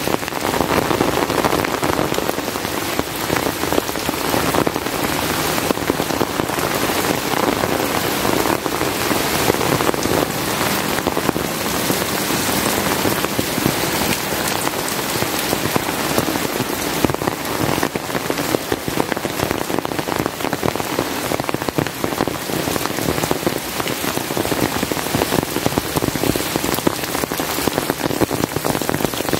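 Heavy rain falling steadily, a dense, even hiss of countless drops with no thunder.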